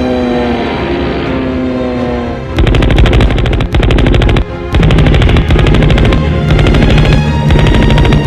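Film soundtrack music with held, slowly falling tones, then from about two and a half seconds in, long runs of rapid automatic gunfire over the music, broken by a few short pauses.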